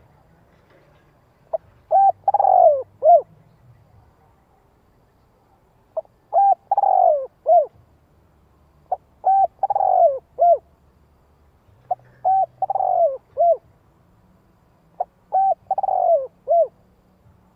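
Spotted dove cooing: five phrases about every three seconds, each a short coo, a quick pair, a long drawn-out falling coo and a short closing note. This is the male's territorial call, used as a lure call to draw in wild doves.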